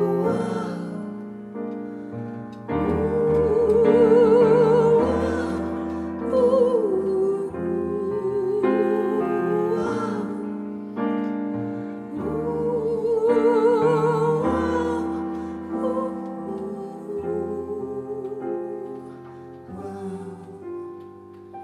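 A woman and a man singing long held notes with wide vibrato over piano accompaniment; the music quietens near the end.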